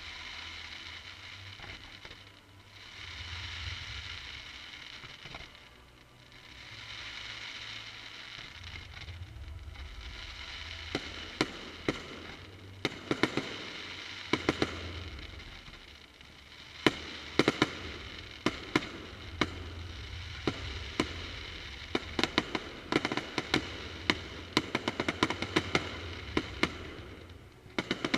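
Fireworks display: swells of hissing for the first ten seconds or so, then from about eleven seconds on dense volleys of sharp crackling pops and bangs.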